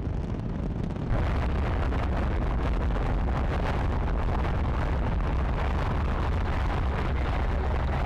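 Saturn V rocket launch: the first-stage F-1 engines give a steady, deep rumble that steps up louder about a second in.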